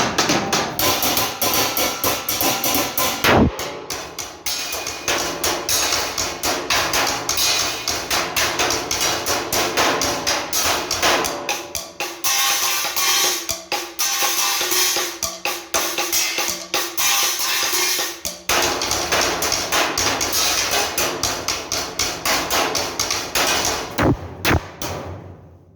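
Drum kit played in a fast, dense metal-style rhythm with cymbals ringing throughout, and a heavy crash about three and a half seconds in. A few final hits land shortly before the end, then the sound dies away.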